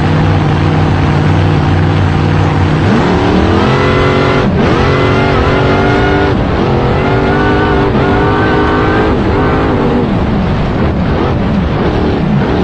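Supercharged boat engine with an exposed blower running loud. It holds a steady deep note for the first few seconds, then revs up in about six surges, each rising in pitch and dropping back.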